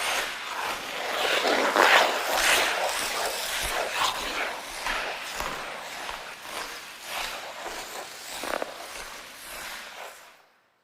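Ice skate blades scraping and carving across ice in a series of swishing strokes, loudest about two seconds in, fading out near the end.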